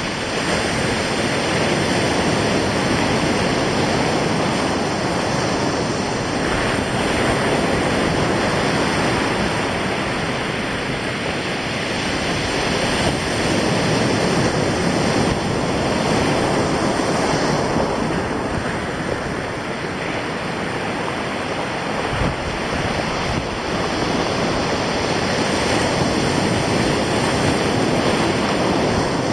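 Sea surf breaking over rocks and washing up a pebble shore, the rush swelling and easing every few seconds, with wind on the microphone.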